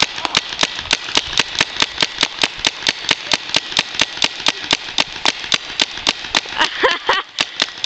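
Paintball gun firing rapid shots, about five a second.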